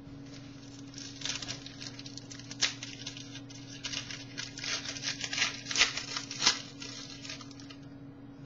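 Trading cards being handled: irregular rustling, sliding and light taps of cards, over a steady electrical hum.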